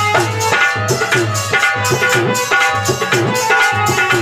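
Instrumental interlude of a bhajan: hand drums playing a steady rhythm, their bass strokes sliding in pitch, over held melodic notes.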